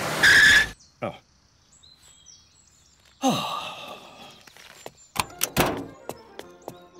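Cartoon soundtrack: a short burst of noise, then faint birdsong, a brief mumbled grunt from a man, and two sharp thunks like a car door shutting. Light, ticking music starts near the end.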